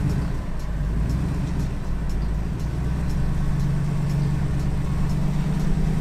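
2022 GMC Sierra AT4X's 6.2-litre V8 running steadily at low revs as the truck crawls slowly over rocks.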